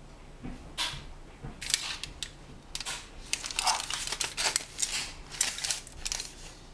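Aluminium foil lining a baking pan being gripped and handled, crinkling in a run of irregular crisp rustles from about a second in until near the end.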